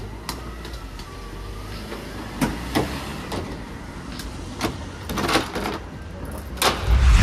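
Low street-traffic rumble with scattered knocks and scuffs, and the loudest thump near the end as a golden retriever's paws land on a pickup truck's ribbed plastic bed liner.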